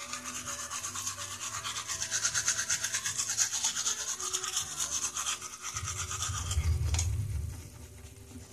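Teeth being brushed with a toothbrush: fast, rhythmic back-and-forth scrubbing. The scrubbing turns quieter after about seven and a half seconds, shortly after a low rumble comes in.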